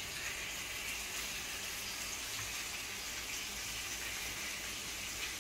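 Steady, faint hiss of a hot sizzler plate of chicken and vegetables still sizzling.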